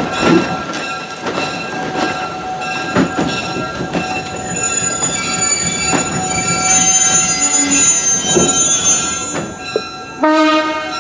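Railroad passenger cars with a steady metallic wheel squeal and a few sharp clanks. A higher, thinner squeal joins about halfway through. Near the end the locomotive sounds a loud pitched blast.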